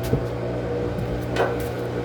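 LG washing machine running with a steady motor hum, with two short knocks, one at the start and one about a second and a half in.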